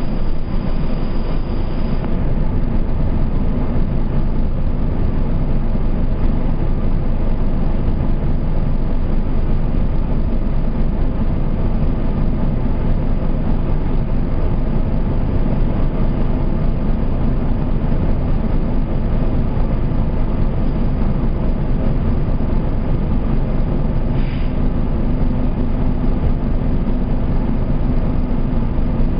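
Steady low drone of a Nova Bus RTS transit bus's diesel engine, heard from inside the bus. The bus rolls slowly, then sits idling in traffic.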